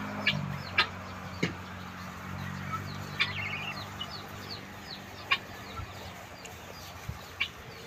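Helmeted guinea fowl giving short, sharp single calls, about six of them spaced unevenly a second or more apart, over a background of faint high chirping.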